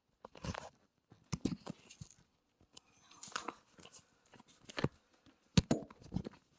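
Irregular knocks, clicks and rustling as grow-tent frame poles and their connectors are handled and fitted together, the sharpest knock about five and a half seconds in.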